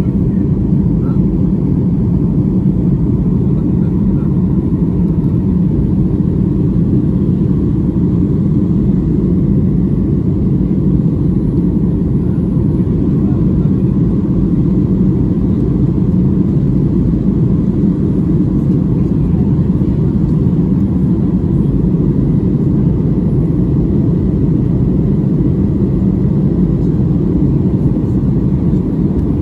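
Steady low rumble of a Ryanair jet airliner climbing after take-off, its engine and airflow noise heard from inside the passenger cabin.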